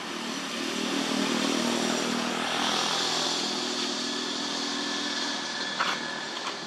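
A motor engine drones steadily, growing louder about a second in and easing off after about five seconds, with a sharp click near the end.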